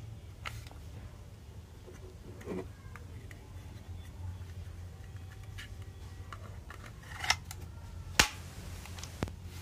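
A few sparse sharp clicks and light knocks from a cordless drill and its parts being handled, the sharpest about eight seconds in, over a low steady hum.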